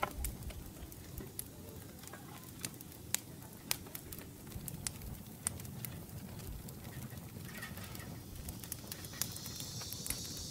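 Scattered sharp clicks and small knocks of a metal rotisserie spit being worked through a whole red sea bream on a wooden cutting board, over a low steady rumble. Near the end a steady high buzz of insects sets in.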